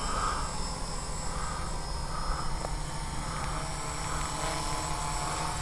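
Homemade quadcopter's electric motors and propellers running in a hover: a steady buzzing whine with slight swells.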